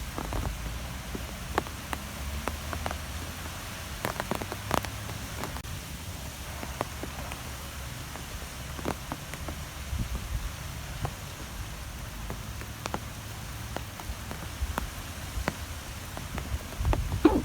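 Wind blowing in gusts as a low, rising and falling rumble, with scattered light ticks and patters over it.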